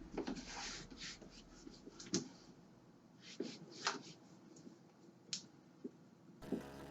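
Hands working plastic pieces of a cat exercise wheel during assembly: scattered light clicks, taps and short rustles, about a dozen in all. Background music comes back near the end.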